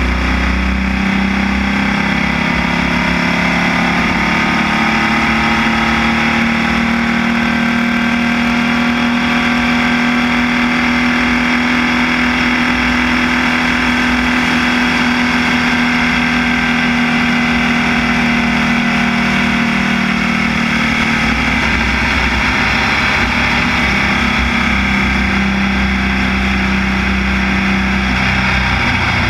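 Onboard sound of a Formula Vee race car's air-cooled Volkswagen flat-four engine running hard down a straight, its pitch holding nearly steady with only slow small changes, with wind buffeting the microphone underneath.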